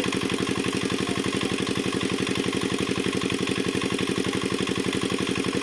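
Water-pump engine running steadily with a fast, even chugging.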